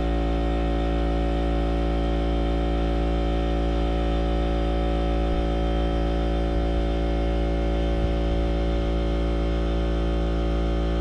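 A steady hum made of many even, unchanging tones, with no other sound on top of it.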